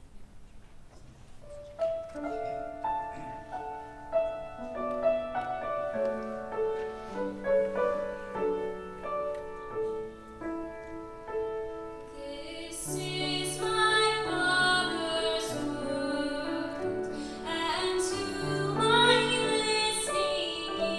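A piano introduction begins about two seconds in. About twelve seconds in, a children's choir starts singing along with it.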